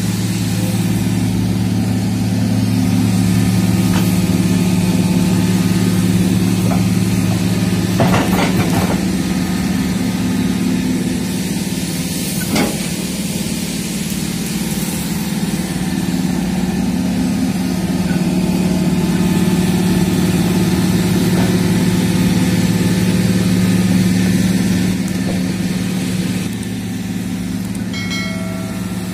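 Hydraulic excavator's diesel engine running steadily, swelling and easing with the load as the bucket digs soil, with a few short knocks around eight and twelve seconds in.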